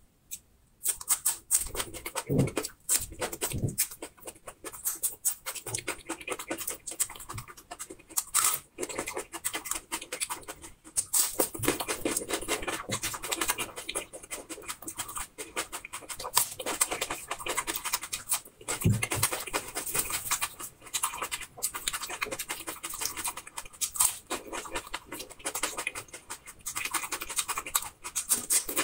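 Crisp crunching and chewing of raw peeled red onion, bitten off in pieces and chewed close to the microphone, a dense run of sharp crackles.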